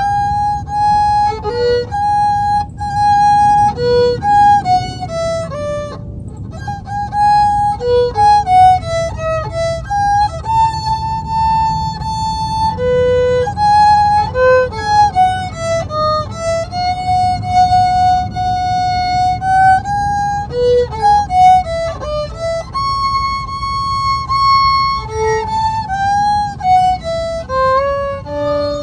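Solo violin, a junk instrument after an amateur repair, bowed in a single unaccompanied melody line of held notes and stepwise runs, over a low background rumble.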